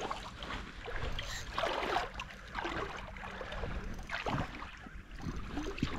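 Irregular water splashing and sloshing as a hooked brown trout is played in close to the bank.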